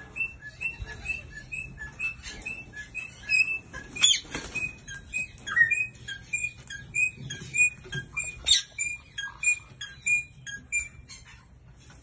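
Male eastern rosella singing: a long run of short, high whistled notes repeated about two to three times a second, stopping near the end. Two brief louder knocks or rustles break in, about a third and two-thirds of the way through.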